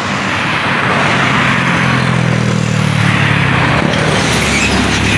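Road traffic passing close by: car engines and tyre noise, one car going past between about two and four seconds in, and another vehicle approaching near the end.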